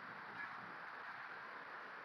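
Faint steady hiss of room tone, with one brief faint high blip about half a second in.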